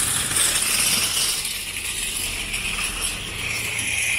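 Wire-frame metal trolley rattling steadily as it is pushed over asphalt.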